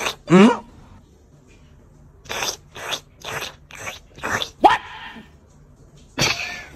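A dog making vocal sounds: a whine that falls steeply in pitch near the start, then a run of five short rough sounds about half a second apart, a brief pitched cry, and another rough burst near the end.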